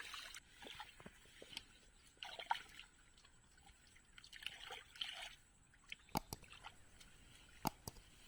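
Water sloshing and splashing in a shallow drain in several short spells, with two or three sharp clicks near the end.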